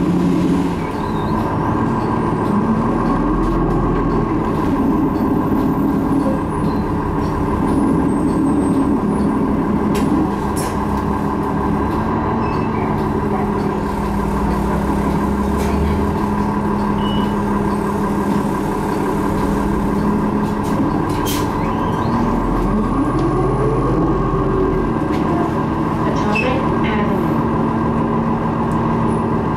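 Inside a city transit bus on the move: the engine and drivetrain run steadily with a constant whine, and a few sharp rattles or knocks come from the body. The engine note rises twice as the bus speeds up, near the start and about two-thirds of the way through.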